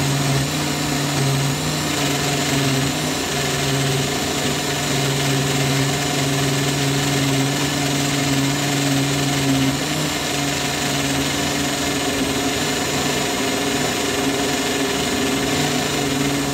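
Countertop electric blender running steadily at speed, blending a liquid protein shake, with a steady motor hum; it is switched off and cuts out at the very end.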